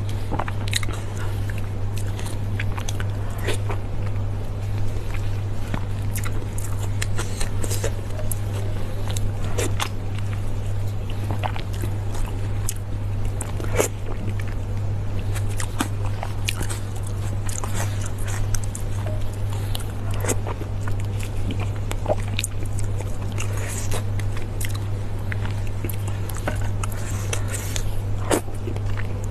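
Close-miked eating sounds: biting and chewing with frequent short clicks and cracks, over a steady low hum.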